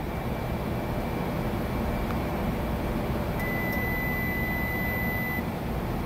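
Sharp R-21LCFS commercial microwave oven running with a steady hum while it heats a cup of water. A little past halfway it gives a single long electronic beep of about two seconds, its signal that the dial timer has run out and the cook cycle is done.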